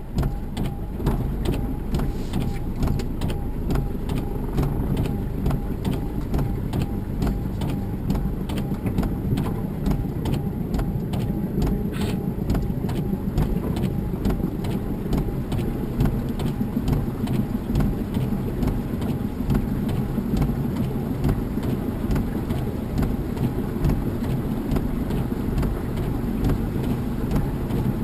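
Toyota Hilux pickup crawling through a flooded river in four-wheel low, heard from inside the cab: the engine runs at low revs under a steady, dense low rumble, with frequent small knocks and clicks throughout.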